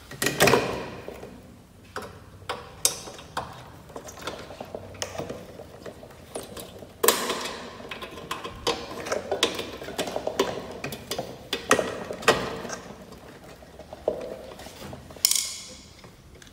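Screws being fitted and driven to fasten a blade to the motor housing of a KDK ceiling fan: a run of irregular metal clicks, ticks and short scrapes.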